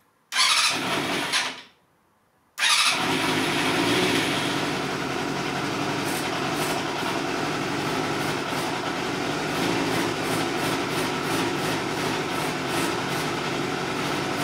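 Vintage Yamaha 250cc sportbike engine started: a first short burst of about a second and a half that stops, then about two and a half seconds in it starts again and keeps running steadily.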